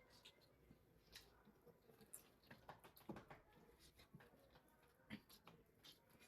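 Near silence with faint eating sounds: soft chewing and a few small scattered clicks and taps, the clearest about three and five seconds in.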